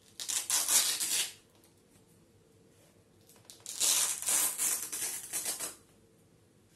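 Hook-and-loop (Velcro) wrist strap of a boxing glove being ripped open twice: a short rip, then a longer one about three and a half seconds in.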